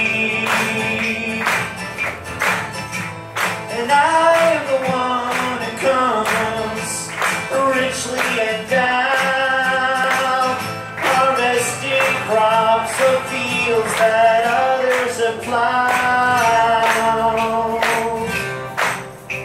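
Live acoustic band: a male singer over two strummed acoustic guitars, with a steady beat of hand percussion.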